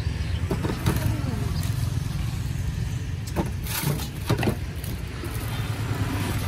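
Plastic jars and a plastic bag handled on a metal stall counter: a few knocks and clicks, with a crinkling rustle about three to four and a half seconds in, over a steady low engine rumble.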